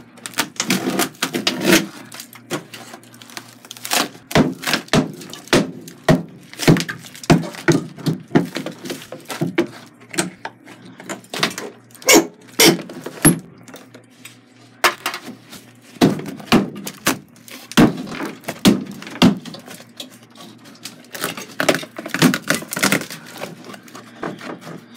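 Wall tiling and wallboard being pulled and broken off a bathroom wall: a run of irregular knocks, thuds and cracks, some with a short ring, coming every second or so.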